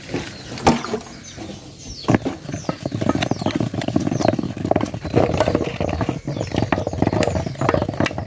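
Cassava flour being stirred into cold water in a container: quick, continuous scraping and sloshing strokes that begin about two seconds in. Short falling bird chirps are heard in the background.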